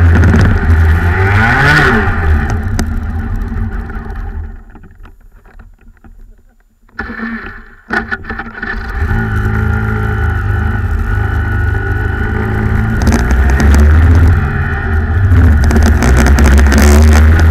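Rotax Max 125 cc two-stroke kart engine heard from on board at speed, its revs dropping and climbing again through a corner. About four seconds in the sound fades almost to nothing for a couple of seconds, then returns suddenly, and the engine runs at high revs again.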